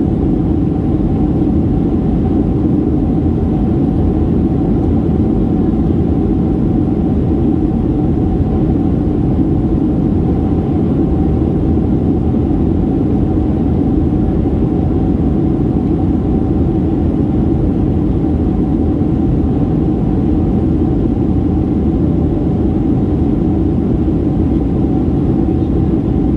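Steady cabin noise inside a Boeing 737-800 in descent: a low rumble of engines and airflow, with a steady whine above it.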